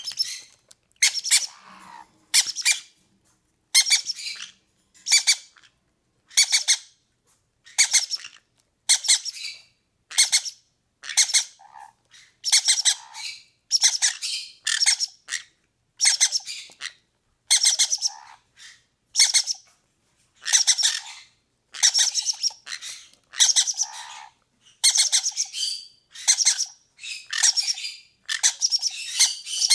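Green-cheeked conure chicks giving harsh, raspy begging squawks, roughly one a second and evenly repeated, as they are fed beak to beak by the parent.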